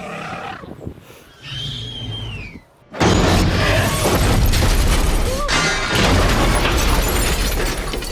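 Action-film soundtrack: a quieter stretch with a high falling tone, then from about three seconds in a sudden loud, sustained crashing din with music underneath.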